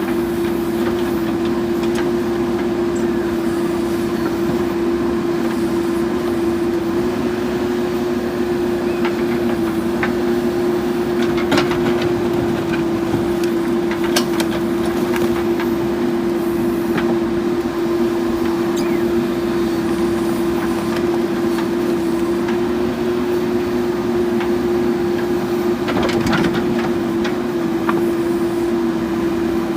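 JCB 3DX backhoe loader running steadily at working revs with a constant whine. A few sharp clunks come around the middle and near the end.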